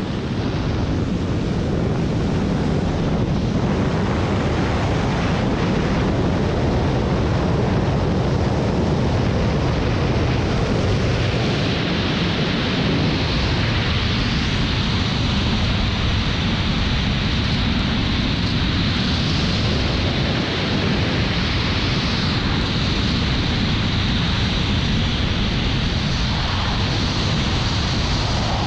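Steady roar of rushing air buffeting the camera microphone during a wingsuit flight, getting hissier partway through.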